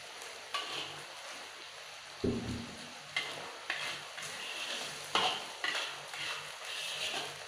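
Metal spatula scraping and stirring a spice paste frying in a wok, in short strokes every half second to a second, over a steady sizzle. One stroke a little over two seconds in knocks against the pan. The paste is being sautéed until cooked and fragrant.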